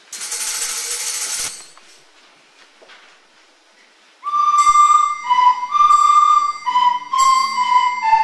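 A hiss of noise lasting about a second and a half, then about four seconds in a school ensemble of soprano recorders starts playing a piva, a Molise pastoral tune. The high held notes step up and down.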